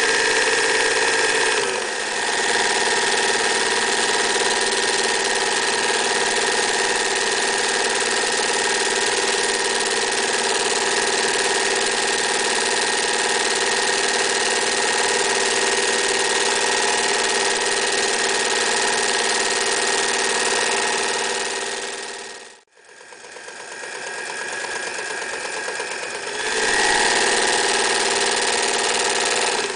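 Electric Singer 99K sewing machine running steadily at speed, stitching through heavy fabric. About three-quarters of the way through it slows to a brief stop, then speeds up again and keeps sewing.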